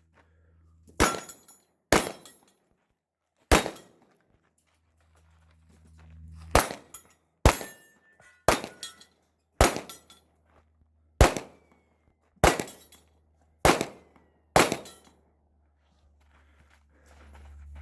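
Sig P320 Legion pistol fired in a shooting-match stage: about ten single shots, spaced about a second apart with longer pauses between strings, a low rumble in some of the gaps.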